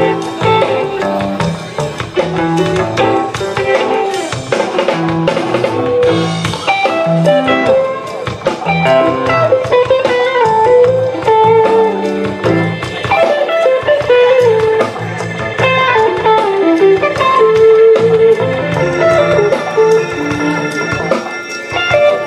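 Rock band playing live at a sound check: an electric guitar picks a running melodic lead over a drum kit.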